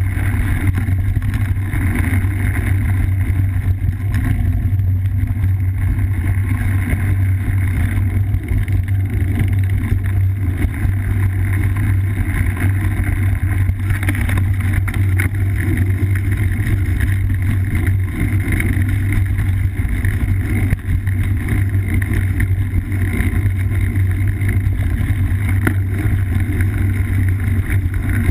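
Steady low rumble of wind buffeting and trail vibration on a bike-mounted GoPro as a cyclocross bike rides a dirt singletrail.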